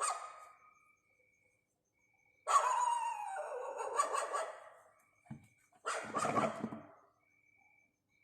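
A dog's voice: a long drawn-out call falling in pitch about two and a half seconds in, then a shorter call about a second later.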